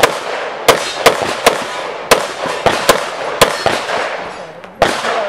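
A string of pistol shots during a practical-shooting stage: about nine shots, mostly half a second to a second apart, each with a short echo, then a pause of over a second before a last shot near the end.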